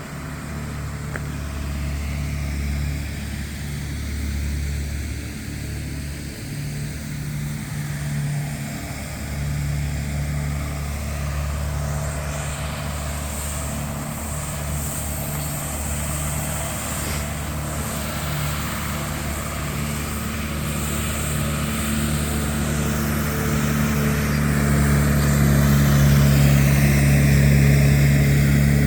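Motor vehicle engines running with a steady low hum, growing louder over the last few seconds.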